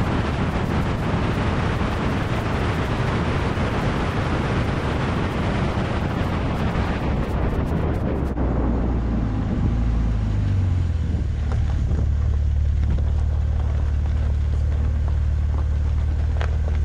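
Car driving, heard from a camera mounted outside on the fender: wind and road noise at speed, which falls away about eight seconds in as the car slows, leaving a steady low engine and tyre drone.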